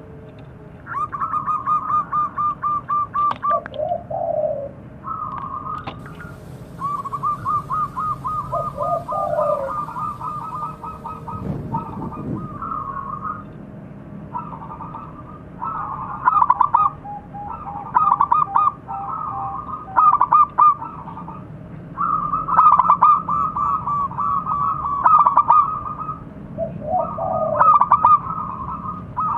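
Zebra dove (perkutut) cooing: phrase after phrase of its rapid, staccato trilled coo, each a quick run of clipped notes, with a few short lower notes between some phrases.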